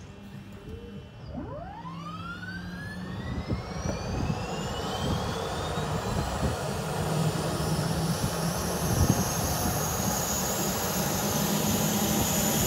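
Auxiliary power unit of a Dash 8 turboprop starting: a small gas turbine whine begins about a second in and rises steadily in pitch as it spools up, growing louder throughout.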